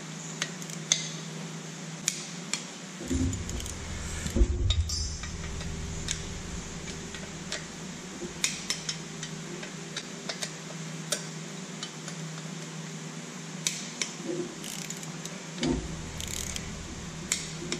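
Scattered sharp metallic clicks and clinks of a torque wrench and socket being worked around the cylinder base nuts of a Lycoming O-320 engine, with a few dull thumps of the tool being handled, at about 3 to 5 seconds in and again near the end.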